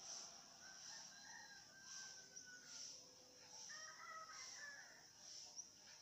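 Faint, drawn-out crowing of a distant rooster, over a high insect chirring that swells in regular pulses.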